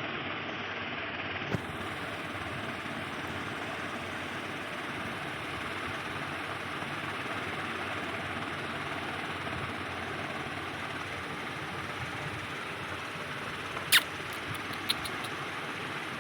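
Steady rushing background noise, with a sharp click about a second and a half in and a louder click near the end followed by a fainter one.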